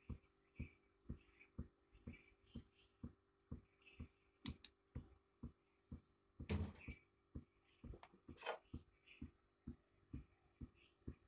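Near silence: faint, short clicks at an even pace of about two a second, with a slightly louder knock about six and a half seconds in.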